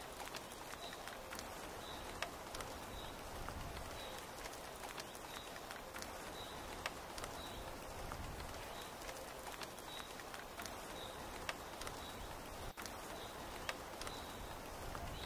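Steady rain falling on tent canvas, with scattered sharp drops. Throughout, a short high chirp from a bird or insect repeats every half second or so.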